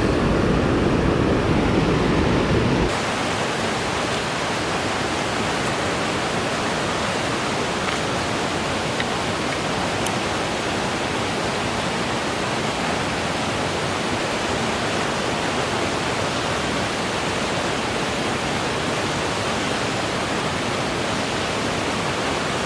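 Rushing water of a fast-flowing creek, a steady even hiss. About three seconds in the sound changes abruptly and loses its heavier low rumble.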